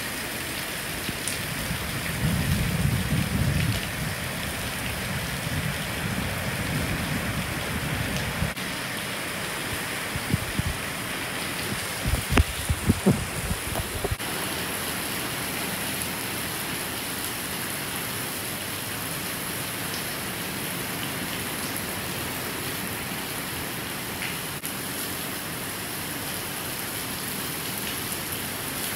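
Hurricane eyewall wind and heavy rain: a steady hiss of rain, with a low rumble of gusts in the first several seconds and a burst of loud low thumps around the middle. After the thumps only the rain hiss goes on.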